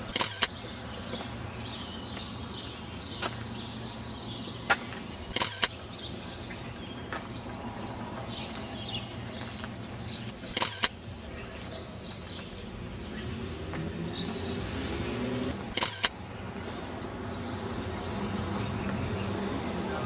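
Birds chirping over a steady background of city traffic, with a few sharp clicks scattered through. A vehicle's engine grows louder in the second half.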